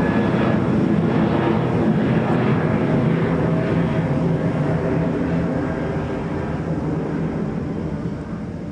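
Jet airliner's engines passing overhead, a loud rushing roar with a steady whine in it that slowly fades as the aircraft moves away.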